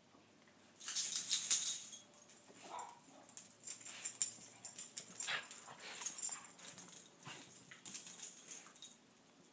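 Miniature schnauzers scuffling over a plush stuffed toy: a loud burst of scuffling about a second in, then irregular scrabbling, shaking and thrashing noises, with small dog noises mixed in.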